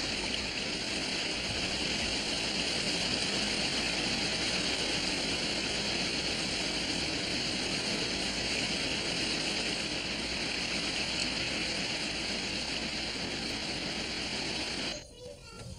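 Woodland stream water running over rocks, a steady rushing hiss that cuts off about a second before the end.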